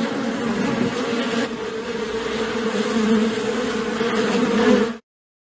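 Flying insect buzzing steadily, a loud continuous drone that cuts off sharply about five seconds in.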